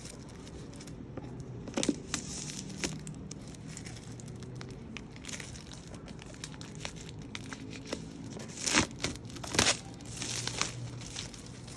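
Laptop box packaging being handled and torn open, with wrapping crinkling and ripping in short, irregular rasps. It is loudest a couple of seconds in and in two strong strokes about three-quarters of the way through.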